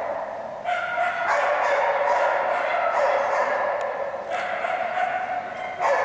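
A small dog yapping in high-pitched, rapid runs of barks that run almost together, breaking off briefly about a second in and again near the end.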